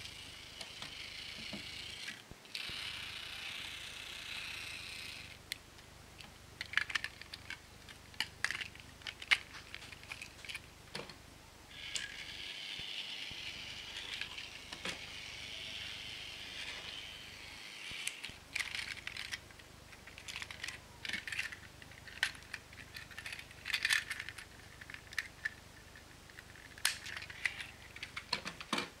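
Plastic Plarail toy train cars clicking and rattling as they are handled and coupled. A small battery-powered toy-train motor and its gears whir for about the first five seconds and again for several seconds after the middle.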